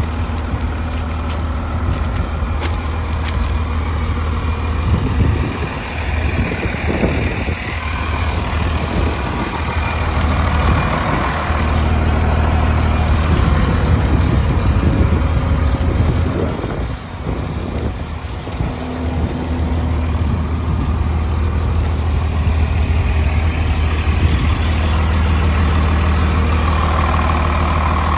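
Case 850H crawler dozer's diesel engine running steadily with a deep hum, its sound shifting twice, about five and seventeen seconds in.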